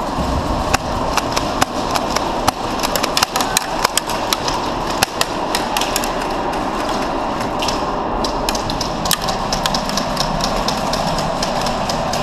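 Irregular sharp pops and snaps of airsoft gunfire and BBs striking wooden pallet walls, sometimes several in quick succession, over a steady background noise.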